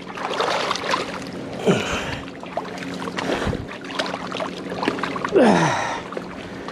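Water splashing and sloshing as a hooked crappie is pulled through the water toward the bank, with scattered clicks and knocks of handling. A person makes two short exclamations that fall in pitch, the second and louder one about five and a half seconds in.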